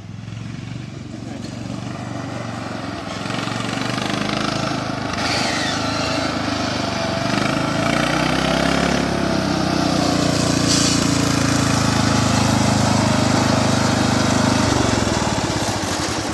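Riding lawn mower engine running hard, growing louder over the first few seconds as it comes closer, then holding steady, with its pitch shifting about halfway through.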